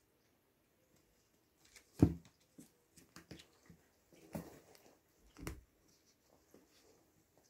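Oriental mother cat and kittens tussling on a padded cat bed: soft rustling and scuffling, with a sharp thump about two seconds in and two more bumps in the middle.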